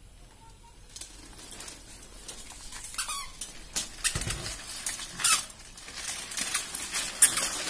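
Plastic baby walker rolling across a tiled floor: its wheels and frame rattle and click more often and more loudly as it goes, with a brief squeak about three seconds in.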